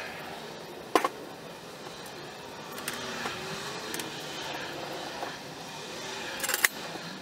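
Two sharp knocks, one about a second in and another near the end, over a steady background noise.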